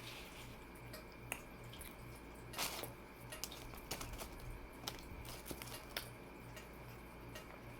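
Faint chewing and small wet mouth clicks from eating a meatball marinara sub, with a short louder hiss about two and a half seconds in.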